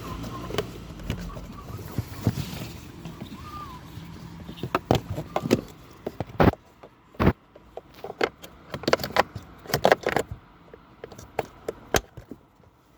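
Low steady hum fading out over the first few seconds, then a series of sharp irregular clicks and knocks, typical of plastic cabin-filter housing or glovebox parts being handled and snapped back into place.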